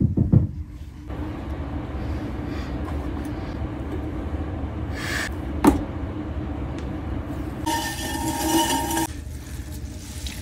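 Electric pottery wheel running with a steady hum as wet clay is worked on the spinning wheel head. A sharp knock comes about halfway through. Near the end, wet clay is wiped across the metal wheel head for a second or so, giving a louder, rasping squeal.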